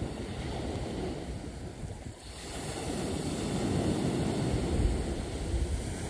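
Wind buffeting the microphone: an uneven low rumble that eases briefly about two seconds in.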